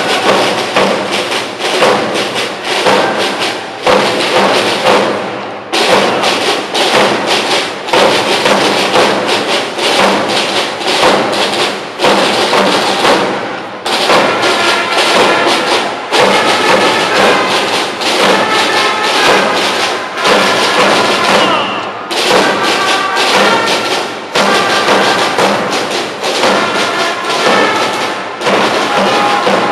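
Military marching band playing a march: drums beating steadily with brass instruments, the brass tune standing out more clearly from about halfway through.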